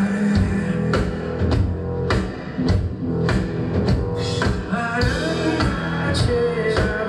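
Live rock band playing: full drum kit beat with electric guitars and bass, a sung line coming in now and then.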